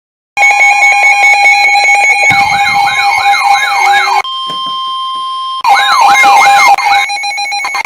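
Electronic siren and alarm tones: steady tones pulsing rapidly, then a fast rising-and-falling yelp starting about two seconds in. A quieter steady tone holds for about a second and a half in the middle, then the yelp returns and gives way to the rapid pulsing tones again.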